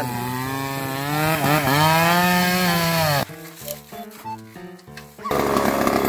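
Two-stroke chainsaw cutting through a teak log, its pitch dipping as the chain bites into the wood and rising again. After about three seconds it cuts off abruptly to a quieter stretch of music, and a loud rough noise starts again near the end.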